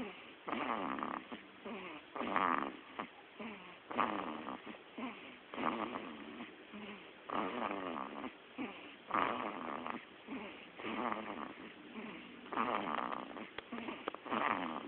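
Sleeping baby snoring: a rasping snore on each breath, repeating steadily about every second and a half to two seconds.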